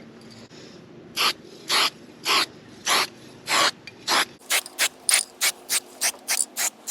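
Aerosol spray-paint can being shaken, the mixing ball rattling inside with each stroke. The strokes come about every half second at first, then quicken to about three a second partway through, mixing the paint before spraying.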